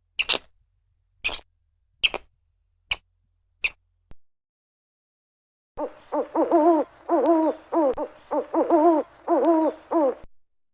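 Five short, sharp squeaks, about one every second, then after a pause an owl hooting in a quick run of about eight pitched notes, each bending in pitch, for about four and a half seconds.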